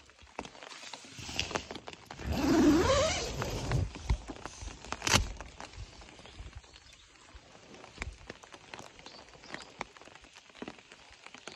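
Scattered raindrops tapping on a nylon tent fly. About two seconds in there is a louder rasp, rising in pitch over a second or so, as the tent door zipper is pulled open, then a single sharp tap about five seconds in.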